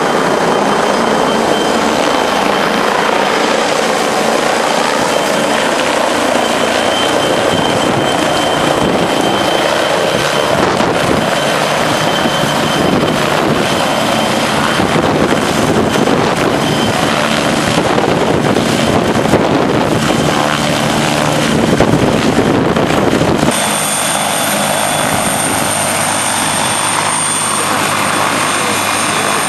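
Helicopter running close by, with a loud, continuous rotor and engine noise. The sound changes abruptly about three-quarters of the way through, after which a high steady whine stands out.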